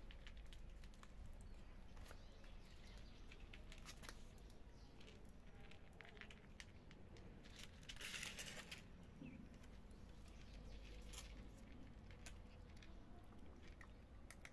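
Faint irregular crunching and clicking of cats chewing dry kibble from plastic bowls, with a brief louder rustle about eight seconds in.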